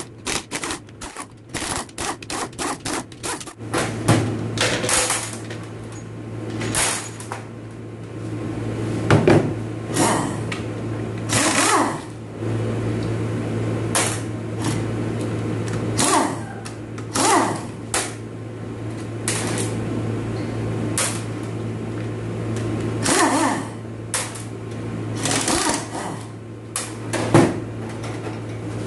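Tools at work unbolting parts from an automatic transmission case: rapid ratcheting clicks for the first few seconds, then short separate bursts of noise every second or two over a steady low hum.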